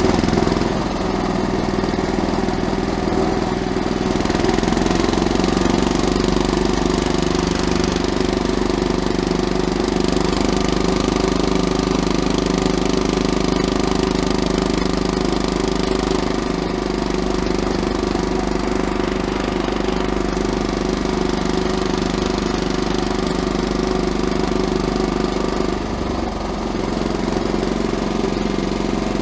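Pasquali walk-behind garden tractor's diesel engine running steadily at full speed as the tractor drives on asphalt in third gear.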